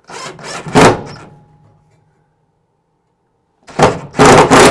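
The second screw being driven to fix a metal pipe clamp rack to the wall: two clusters of short, loud bursts, one in the first second and one again near the end, with a quiet gap between.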